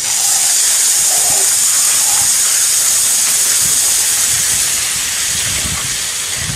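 Two bottles of cola erupting in a soda geyser: a loud, steady hiss of foam spraying out, easing slightly in the second half and cutting off suddenly.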